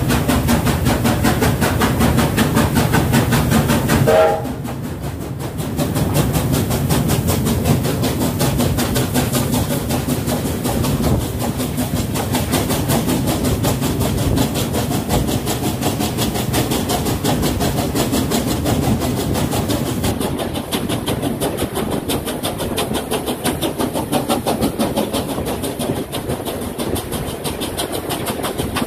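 USATC S160 2-8-0 steam locomotive working a train, heard from a coach: a steady rhythm of exhaust beats and wheels running on the rails. It is loud and echoing inside a tunnel for the first four seconds, then drops away suddenly as the train comes out into the open.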